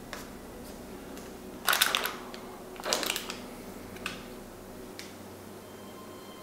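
Small 3D-printer parts being handled on a workbench: two short clattering rattles about two and three seconds in, then a couple of lighter single clicks.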